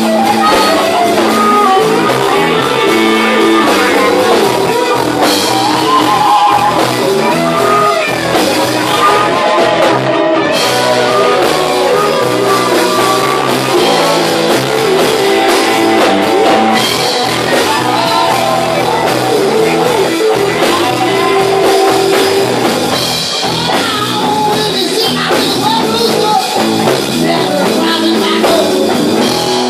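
Live blues band playing loud and continuously: electric guitars and drums, with a voice over them.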